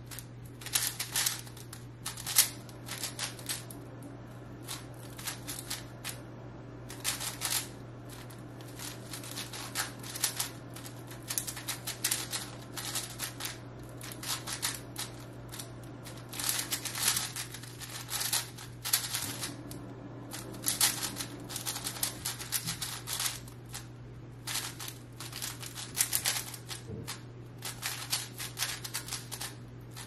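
A plastic 5x5 speedcube's layers being turned fast by hand: rapid flurries of clicks and clacks, broken by short pauses, over a faint steady hum.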